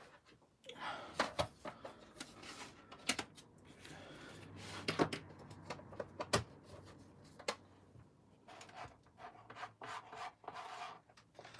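Handling noise of an airbrush being taken out of its plastic case and laid on a cutting mat: rubbing and rustling with scattered clicks and knocks, the sharpest about three, five, six and seven and a half seconds in.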